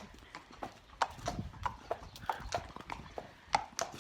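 A horse's hooves clip-clopping at a walk: sharp, irregular clacks, two or three a second.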